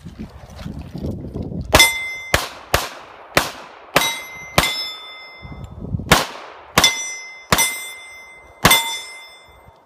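A string of about ten pistol shots fired in two quick runs with a short pause between them. Several shots are followed by the ringing clang of steel plate targets being hit.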